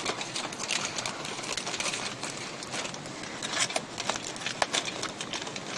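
Heavy-duty aluminium foil crinkling and crackling as it is folded over by hand in small folds, a dense run of light crisp ticks.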